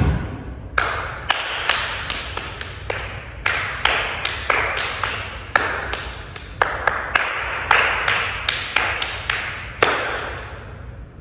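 Two people clapping their hands in short one-bar rhythm patterns, call-and-response style. The claps come in uneven groups, and each sharp clap rings briefly off the walls of a large, hard room.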